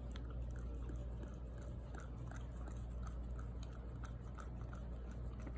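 A dog chewing, with small irregular clicks and crunches about two or three times a second.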